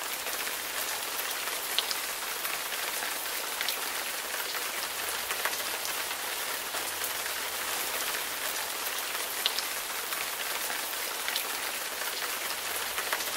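Steady heavy rain falling on a hard surface: an even hiss of drops, with a few sharper drop ticks here and there.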